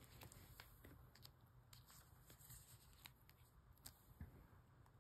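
Faint handling of photocards and plastic binder sleeves: soft, scattered ticks and rustles as cards are slid into the pages.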